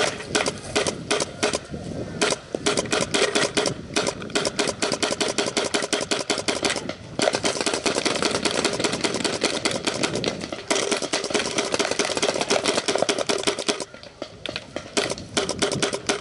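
Paintball marker firing rapidly, long strings of sharp shots at many per second, with short breaks between strings.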